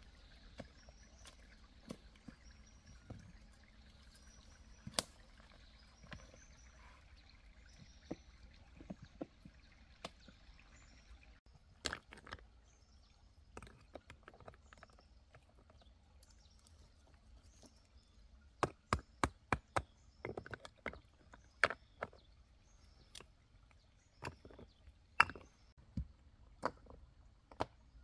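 Irregular sharp knocks and chopping strikes, with a quick run of about half a dozen strikes about two-thirds of the way through.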